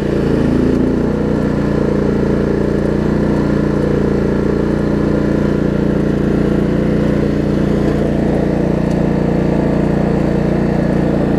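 Craftsman LT1750 riding mower engine running steadily with the electric PTO switched on. The deck blades are not engaging because the stretched deck belt is too loose for the PTO to drive it.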